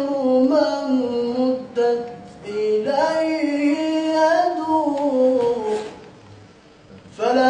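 A young man sings an unaccompanied Arabic religious ibtihal (Islamic supplication chant) solo, holding long notes with ornamented turns. He breaks off briefly about two seconds in and pauses again about six seconds in, then starts a new phrase just before the end.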